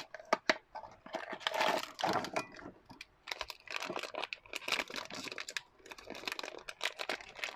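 Blind box packaging being opened by hand: a few sharp clicks near the start, then a wrapper crinkling and tearing in quick irregular crackles.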